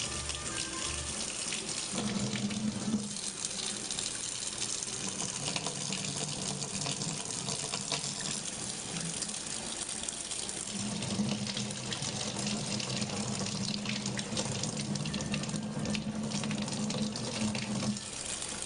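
Water running steadily, like a tap, with a low hum coming and going under it.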